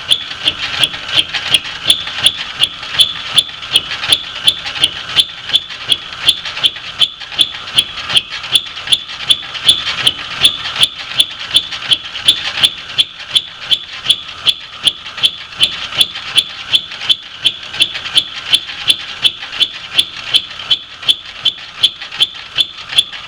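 Lathe facing a steel fixture with a fly cutter in an interrupted cut: a sharp strike each time the cutter meets the steel, about two a second, over a steady metallic ringing.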